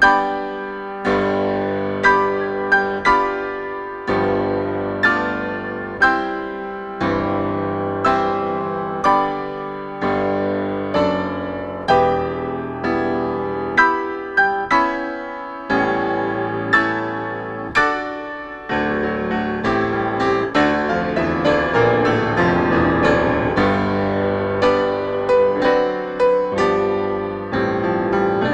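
Solo grand piano: chords struck about once a second, each left to ring and fade, then a denser passage of quick running notes for the last third.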